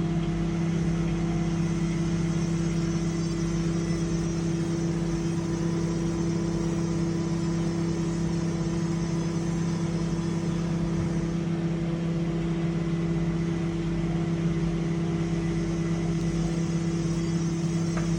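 Microwave oven running with a steady hum and a faint wavering high whine, heating popcorn before any kernels have started to pop.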